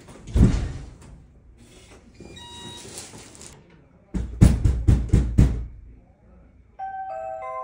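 A string of front-door sounds: a thud about half a second in, then a digital door lock whirring with short electronic beeps, then a quick run of about six knocks on a door. Near the end an electronic doorbell chime starts ringing.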